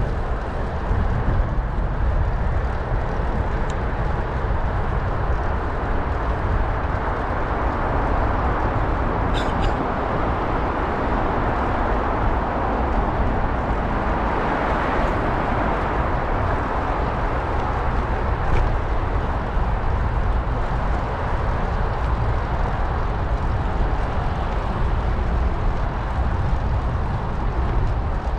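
Steady wind rushing over the microphone of a moving bicycle, with a deep continuous rumble under it.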